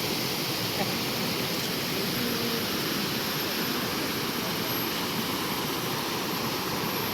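Steady rush of fast-flowing water, an even noise with no breaks or changes.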